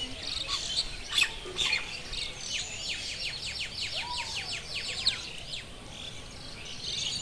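Birds chirping and twittering, with a fast run of short, repeated chirps in the middle, several a second.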